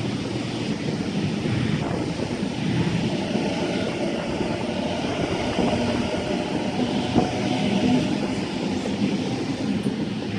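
A train running past with a steady rumble and rail noise, even in level throughout.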